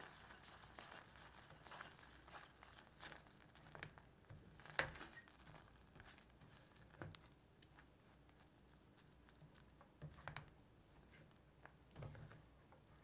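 Silicone spatula stirring and scraping a thickening egg-yolk custard in a saucepan: faint, with scattered light taps and scrapes, the sharpest about five seconds in.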